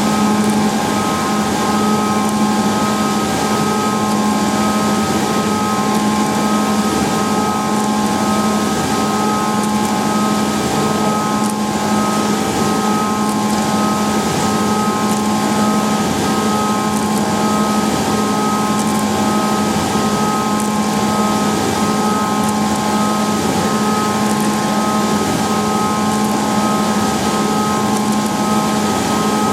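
Leadwell V-60iT 5-axis CNC machining centre running steadily: a constant machine whine of several steady tones over an even hiss.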